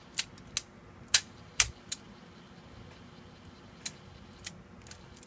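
Sharp mechanical clicks from the Realistic SCT-29 cassette deck's tape transport as its keys are worked and the mechanism engages and drops back out: a quick run of about five in the first two seconds, then three fainter ones spaced out near the end.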